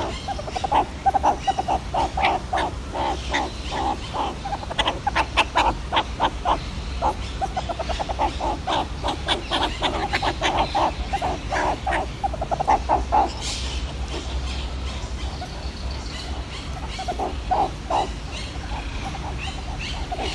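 Meerkat calling: rapid runs of short, repeated chirping calls, several a second, for most of the first two-thirds, then a pause and a few more calls near the end, over a steady low background hum.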